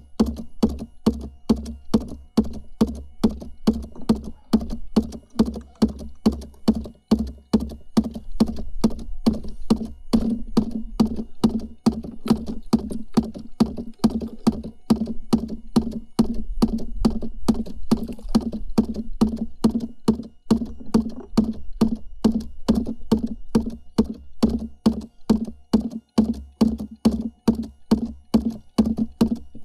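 DIY scrap-aluminium fish thumper knocking steadily on the kayak hull, about three knocks a second, over a steady hum.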